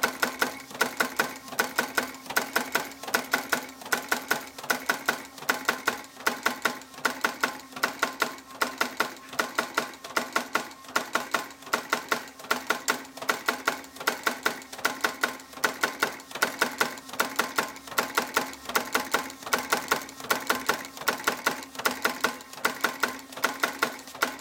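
Graphic Whizard numbering machine running: a fast, even clatter of its feed and numbering mechanism in a steady repeating rhythm, over a steady hum.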